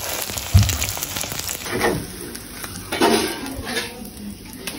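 An egg sizzling as it fries in oil on a flat pan, with a knock about half a second in and a spatula scraping on the pan as the egg is lifted off.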